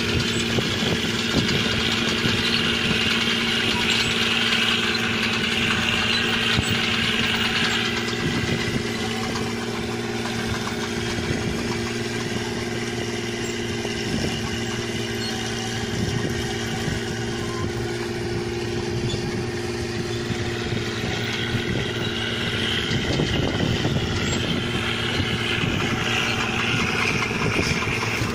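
Rice combine harvester's diesel engine running steadily at an even pitch, with a higher rushing machine noise that is stronger for the first several seconds, eases off in the middle and comes back near the end.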